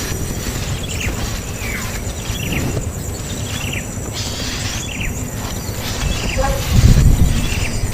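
A bird giving repeated short, falling chirps, roughly one every three-quarters of a second, over a steady high insect buzz. A low rumble near the end is the loudest part.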